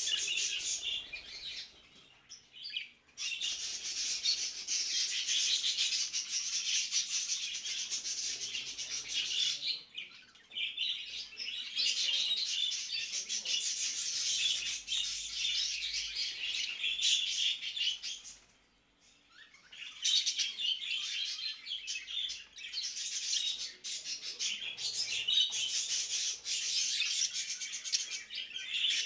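Many budgerigars chattering and warbling together in fast, high chirps, the busy flock chatter of a breeding room used to bring pairs into breeding condition. It comes in three long stretches, with brief lulls about 2, 10 and 19 seconds in.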